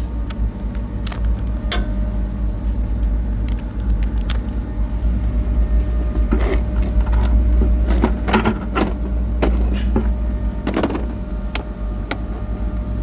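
Steady low hum of running machinery, with scattered metal clicks and scrapes of a hand tool undoing the 6 mm bolts on a chiller's oil filter housing, busiest in the middle stretch.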